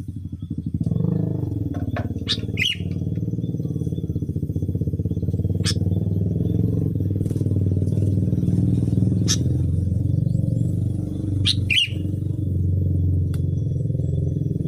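An engine running steadily throughout, the loudest sound, with two short bird calls falling in pitch, about two and a half seconds in and near the end, likely sooty-headed bulbul (kutilang) calls, and a few sharp ticks between them.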